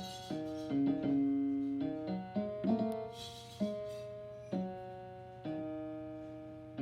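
Piano played by hand in a slow, simple tune of single notes and chords, each struck note ringing and fading away, about one or two strikes a second. A steady low hum runs underneath.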